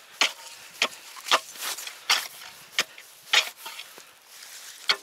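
An ice chisel chopping into a set-line hole in thin river ice, about seven sharp strikes roughly half a second to a second apart. The hole has hardly frozen, so the strikes break through a thin crust of ice and slush.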